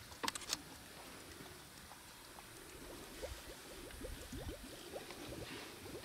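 Male leopard lapping water from a dam's edge, with quick, evenly repeated laps that set in about halfway through. A few sharp clicks near the start.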